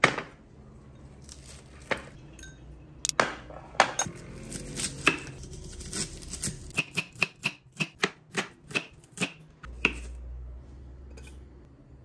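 Kitchen knife chopping on a cutting board: a few scattered strokes, then a steady run of about three chops a second for roughly three seconds.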